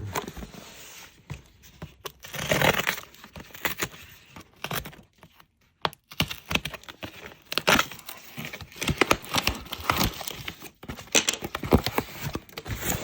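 Keyboard packaging being handled and opened: irregular rustling, scraping and tearing of cardboard and wrapping, with knocks and clicks, and a brief pause about six seconds in.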